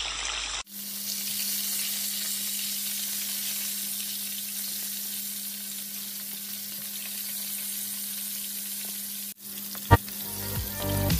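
Breaded whole small fish sizzling as they shallow-fry in hot oil in a nonstick pan: a steady frying hiss. A single sharp click comes near the end.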